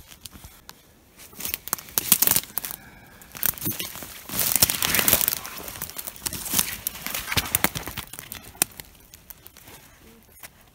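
Footsteps through dry fallen leaves and twigs, with rustling. It is loudest about four to five seconds in and softer in the second half.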